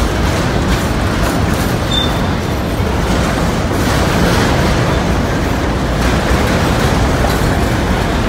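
Freight train wagons rolling past close by: a steady rumble and rattle of steel wheels on the rails, with a brief high-pitched note about two seconds in.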